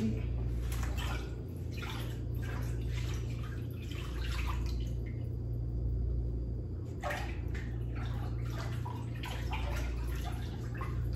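Hands splashing and swishing about in a tank of water, in irregular splashes and drips, over a steady low hum.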